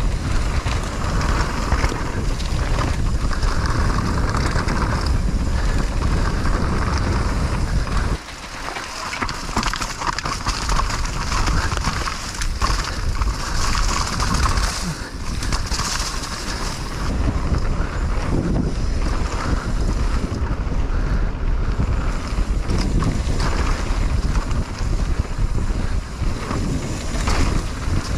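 Wind rushing over the microphone during a mountain-bike descent, with the rumble of the bike running over the trail. It drops away briefly about eight seconds in, then picks up again.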